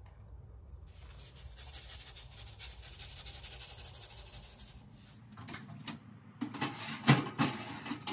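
Salt shaken from a plastic shaker onto aubergines: a fine rapid rattle and patter of grains for about four seconds, followed by a few sharp knocks and clatter of kitchen items near the end.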